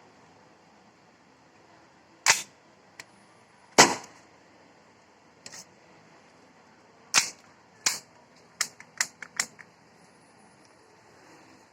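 WE Hi-Capa gas blowback airsoft pistol firing about eight sharp shots: four spaced singly a second or more apart, then four in quick succession near the end.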